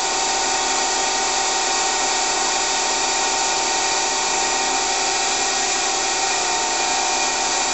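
Daewoo Puma 6G CNC lathe running with its spindle turning at 1600 rpm: a steady, even mechanical whine with a few held tones over a hiss, sounding healthy.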